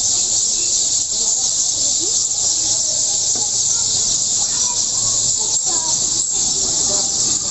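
Many sparrows chirping together in a dense chorus, with a steady high-pitched hiss underneath.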